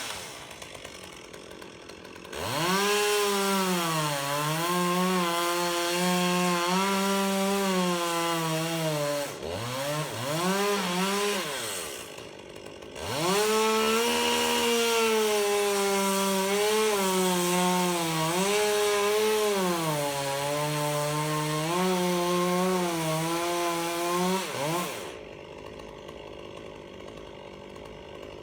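Two-stroke chainsaw cutting redwood at high revs, its pitch sagging and recovering as the chain loads in the cut. There are two long cuts, of about seven and twelve seconds, with a short burst of revving between them, and the saw drops off about three seconds before the end.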